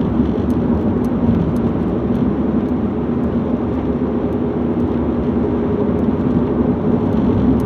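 Road noise inside a moving vehicle's cabin: a steady drone of tyres and engine with an even low hum.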